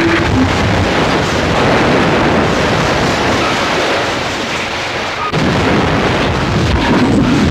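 Film sound effects of a van crashing and rolling over: loud, continuous crashing and rumbling, with a brief lull about five seconds in and then a sudden new impact.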